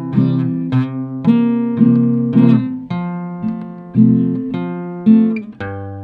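Solo acoustic guitar strumming chords in a steady rhythm, about two strokes a second, each chord ringing and fading before the next.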